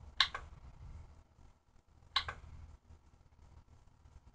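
Computer mouse button clicked twice, about two seconds apart; each click is a quick press-and-release pair of sharp clicks. The clicks sit over a faint low hum.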